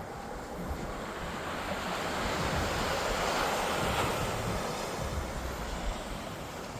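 Surf washing onto the shore, swelling to its loudest about three to four seconds in and ebbing again, with wind buffeting the microphone.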